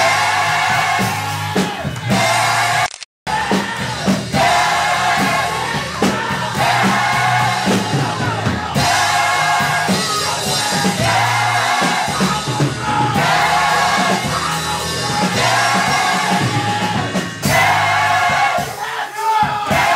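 Gospel mass choir singing with instrumental accompaniment that sustains low notes. The sound cuts out completely for a moment about three seconds in.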